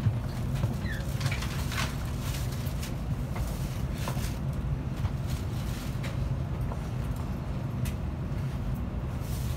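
Steady low hum and rumble inside an N700A Shinkansen passenger car, with a few light clicks and knocks scattered through it.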